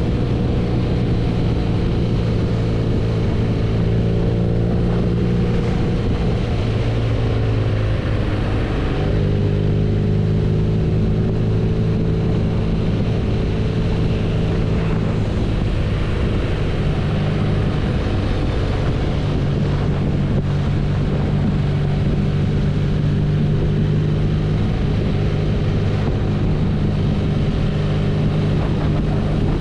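BMW R nineT's 1170 cc air/oil-cooled boxer twin running steadily while riding, its engine note stepping to a new pitch about a third of the way in and a few more times past halfway.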